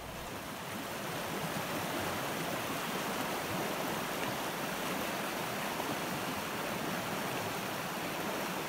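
Shallow river rushing over a cobble riffle: a steady, even rush of water that swells in over the first couple of seconds.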